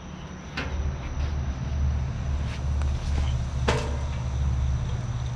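Rummaging in a backpack to pull out a laptop: rustling and a few sharp knocks, the loudest just under four seconds in, over a steady low rumble.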